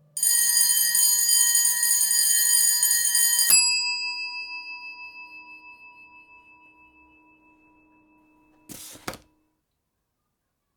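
A loud, steady electronic buzz is cut off by a single bell-like ding that rings and slowly fades over several seconds. Near the end comes a brief scratchy rustle, heard twice in quick succession.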